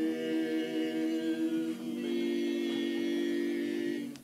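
Male barbershop quartet singing a cappella, holding a sustained chord that moves to a new chord about halfway through and is cut off sharply near the end.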